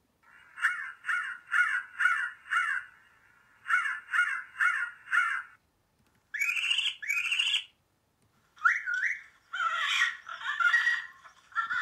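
Prairie dog alarm calls come first: two bouts of quick chirping barks, five and then four. Next come two rising peacock calls and then a string of parrot squawks, all played through a laptop's small speakers.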